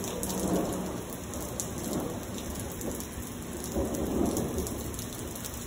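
Heavy rain falling steadily on pavement, with low thunder rumbling underneath and swelling a little a couple of times.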